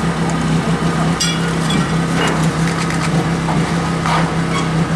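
A steady low machine drone under scattered knocks and crunches of rubble and broken debris being shifted by hand, with one sharp crack about a second in.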